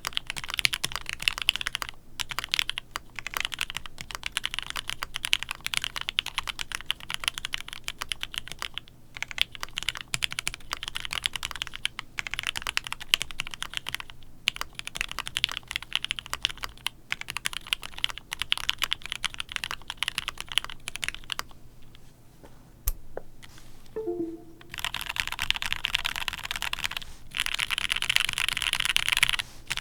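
Typing on a GOK 7v mechanical keyboard with Gateron Black Ink linear switches on a foamed polycarbonate plate: quick runs of keystroke clacks with short pauses. A quieter, sparser stretch comes about three-quarters of the way through, then a dense, fast flurry of keystrokes near the end.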